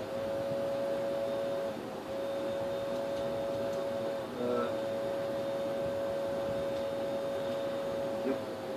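A steady electric whine held at one pitch, sagging briefly twice, about two and four and a half seconds in.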